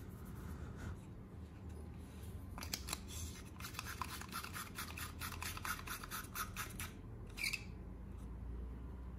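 LED bulb's screw base being twisted into a plastic lamp holder: a rapid run of scraping clicks for about four seconds, then one sharper click near the end.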